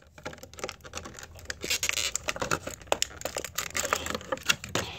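Small plastic Mega Bloks figure parts being handled and fitted back together: a run of quick, irregular clicks and scratches.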